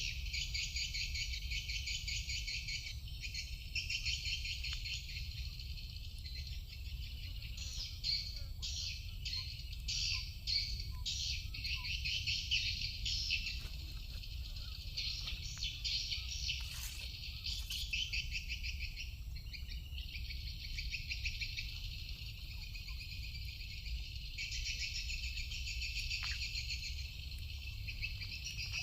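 Rapid, high-pitched chirping from an unidentified animal, in dense pulsing bouts with short gaps, over a steady low rumble.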